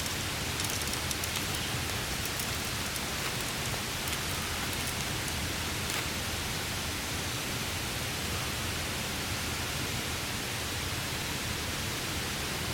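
Steady hiss of rain falling on a tarp, with a few faint sharp ticks here and there.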